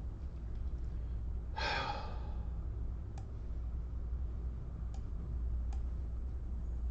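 A steady low hum, with one short breathy exhale, like a sigh, about one and a half seconds in, and three faint clicks later.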